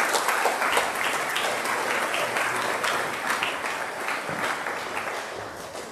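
Audience applauding, a dense clapping that slowly dies down towards the end.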